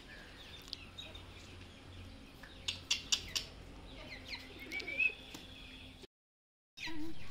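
Young chicken giving short, high chirps that fall in pitch, and a few squawks, while it is held in the hands. A few light clicks sound around the middle, and the sound cuts out briefly near the end.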